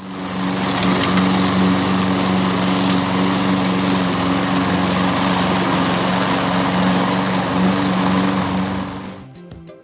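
Gas walk-behind lawn mower engine running steadily at a constant pitch while the mower cuts through grass and fallen leaves; the sound fades out about nine seconds in.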